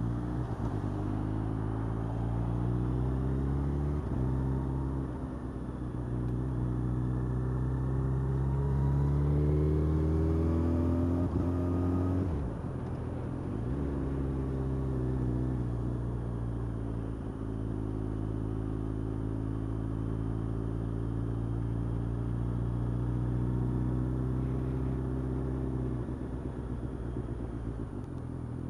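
Yamaha FZ8's inline-four engine pulling through the gears while riding in traffic. The note climbs steadily for the first half, dropping briefly at each gear change with a sharper drop about halfway through, then holds a steady pitch at cruising speed.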